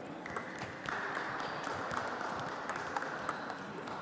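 Table tennis ball clicking as it is struck with bats and bounces on the table during a rally, with sharp ticks every half second or so. A steady hiss begins just after the start and grows louder about a second in.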